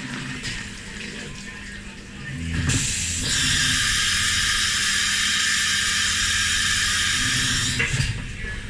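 Syil CNC milling machine at work on copper: a loud, steady spraying hiss starts about three seconds in and cuts off sharply near the end, over the quieter hum of the running machine.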